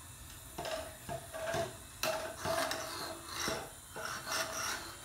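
Irregular rubbing and scraping noises in uneven strokes, starting about half a second in.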